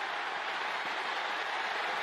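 Large stadium crowd cheering steadily during a long interception return.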